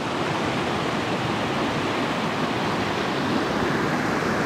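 Steady rush of a rocky mountain stream cascading over boulders.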